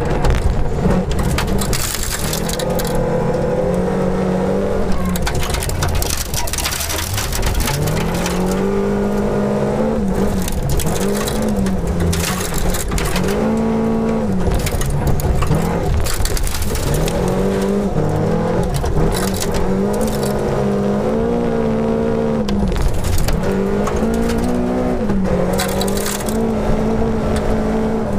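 Volvo 242 Group H rally car's engine heard from inside the cabin under hard acceleration on a gravel stage. Its pitch climbs and drops again and again through gear changes and lifts, over a constant rattle and spray of gravel against the car's body.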